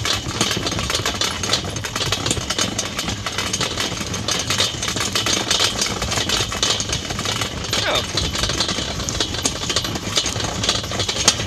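Hand-pushed homemade coffee-grounds spreader rattling and clicking steadily as it rolls along a beet row, its metal frame, paddle wheel and grinder under the drum turning as the grounds drop out of the chute.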